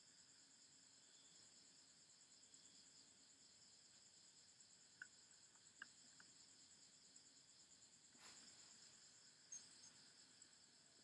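Near silence with faint, steady high-pitched trilling of insects in the background, and a few soft clicks near the middle.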